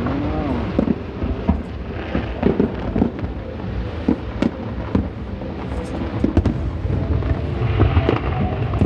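Aerial fireworks bursting: a run of bangs and crackles over a steady low rumble, with crowd voices faintly underneath.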